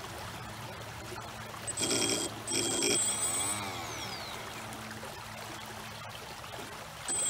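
Brushless motor and speed controller of a Pro Boat 23-inch River Jet Boat held out of the water, blipped on the throttle: two short bursts with a high electronic whine about two seconds in, then a motor note that rises and falls. Steady rush of creek water underneath.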